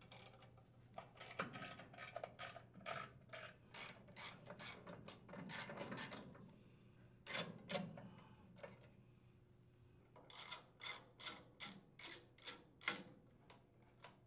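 Socket ratchet clicking in short rasping runs as a 10 mm socket unthreads the blower housing screws on a small engine; near the end a steady series of about two to three rasps a second.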